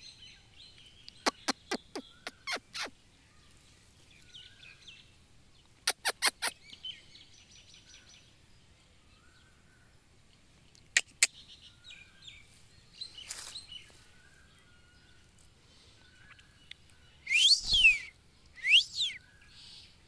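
Male ring-necked parakeet calling: short runs of sharp, quick clicking notes, several a second, then two loud harsh screeches near the end.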